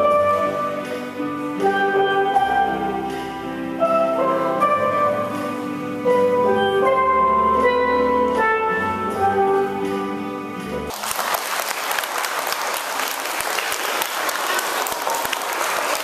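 A small steel pan band playing a melody of struck, ringing notes, the piece ending about eleven seconds in; applause starts at once and carries on to the end.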